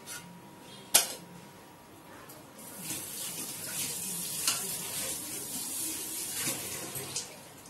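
Pot of rice boiling on the stove, its water bubbling and hissing around a steel container set in it to steam fish. A single sharp click about a second in; the hiss sets in a few seconds in and dies away near the end.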